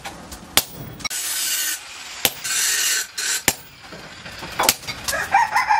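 Hammer blows on a red-hot chainsaw bar held on an anvil, four sharp strikes a little over a second apart, with two longer rasping scrapes between them. A rooster starts crowing near the end.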